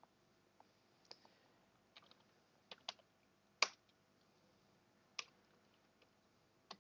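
Faint, slow computer keyboard keystrokes: single key clicks spaced irregularly, the loudest about halfway through.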